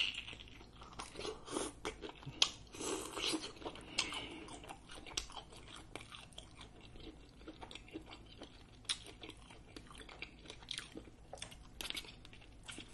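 A person biting grilled shrimp off a skewer and chewing it, with a steady run of wet mouth clicks and smacks and a few sharper bites.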